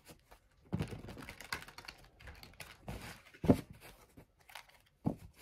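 Tarot cards being shuffled by hand: clusters of quick papery clicks, with a louder knock about three and a half seconds in.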